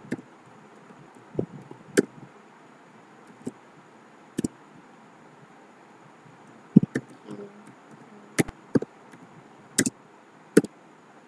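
Computer keyboard keys being typed slowly: single sharp key clicks at irregular intervals, roughly one a second, with a pause of about two seconds in the middle.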